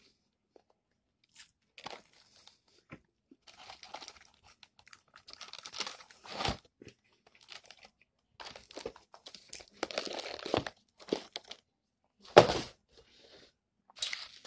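Close-up crunching and chewing of crispy KFC fried chicken, with tearing as pieces are pulled apart, coming in irregular bursts. The loudest crunch comes near the end.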